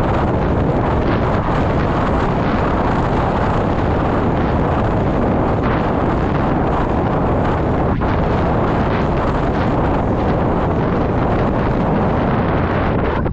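Wind buffeting the camera microphone on a road bike riding fast downhill: a loud, steady rush of noise, heaviest in the low range.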